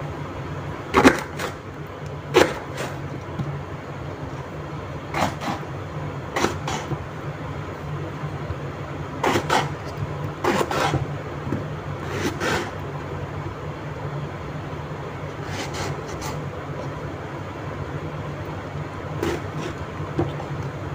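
Kitchen knife slicing an eggplant into rounds on a wooden cutting board, the blade knocking on the board at irregular intervals, about nine times, over a steady low hum.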